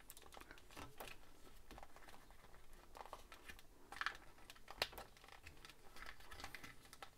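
Faint clicks and scrapes of a plastic transforming robot toy's parts being pushed and shifted by hand, with two sharper clicks about four and five seconds in.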